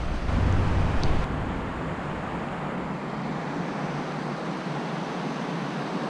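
Steady rush of river water over rapids, with wind buffeting the microphone as a low rumble during about the first second.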